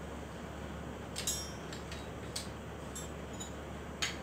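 A few light metal clinks and taps from starter-motor parts being handled, the sharpest about a second in, over a steady low hum.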